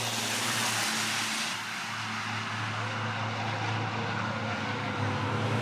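Race trucks' diesel engines running at speed on a circuit, a steady drone. The higher rushing noise eases off about a second and a half in and comes back near the end.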